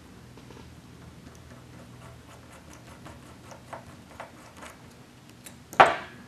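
Light metal ticks and clicks of a hex driver tightening a small nut on an R/C car's shaft, over a steady low hum. About six seconds in comes one louder, sharp metallic clack.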